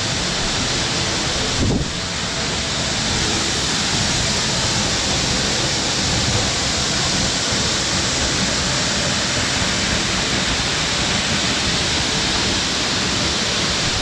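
Waterfall close by, a steady loud rush of falling water. There is a short thump about two seconds in.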